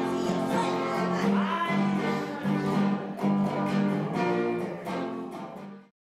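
Accordion and electric guitar playing a tune together: held accordion notes under a steady strummed beat. The music fades out right at the end.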